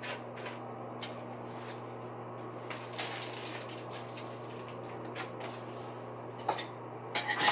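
Paper rustling and scattered light handling clicks as the instruction sheet is picked up and looked over, with a louder rustle about three seconds in, over a steady low electrical hum.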